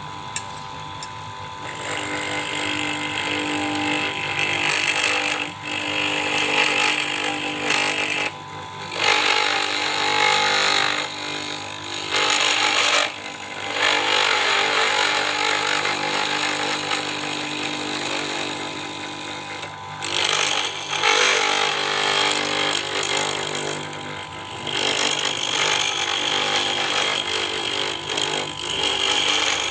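A lathe motor runs steadily while a cutting tool scrapes against a spinning pipe. The rough cutting noise stops briefly several times as the tool is lifted off, and then resumes.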